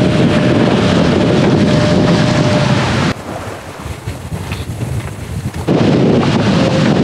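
Wind buffeting the microphone on the deck of a sailboat under sail, with water rushing along the hull. About three seconds in it drops abruptly to a much quieter sound of wind and sea for a couple of seconds, then the loud wind noise returns.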